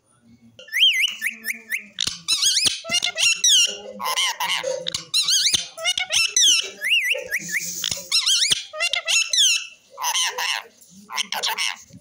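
Rose-ringed parakeet (Indian ringneck) chattering in short, high, squeaky phrases, with warbling whistles mixed with talk-like babble. It starts about half a second in and goes on in bursts with brief gaps.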